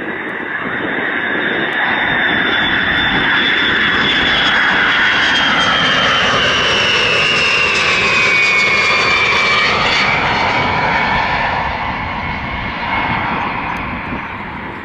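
WC-135 Constant Phoenix jet with its TF33 turbofan engines passing close by. The sound swells to its loudest in the middle and fades, with a high engine whine sliding down in pitch as it goes past.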